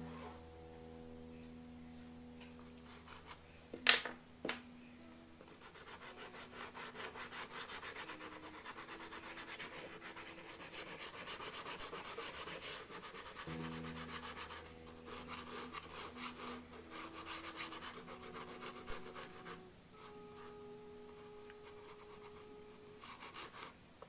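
A dry drawing crayon scratching and rubbing on paper in quick repeated strokes, heaviest through the middle of the stretch, with a sharp tap about four seconds in and another at the end. Quiet background music with held notes runs underneath.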